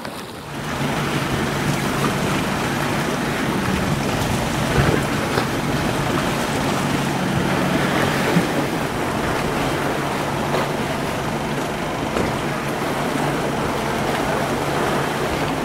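Boat's engine running steadily at a low hum, under the noise of waves and wind.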